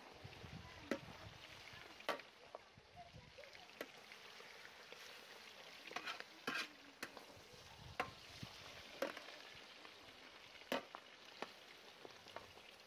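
Beef frying in hot oil in a pan: a steady sizzle, broken by sharp pops or clicks every second or two.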